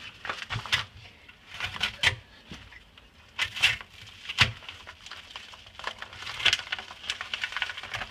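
Utility knife cutting along the edge of a padded paper mailer: irregular scraping and slicing strokes with paper crinkling, some strokes short and sharp.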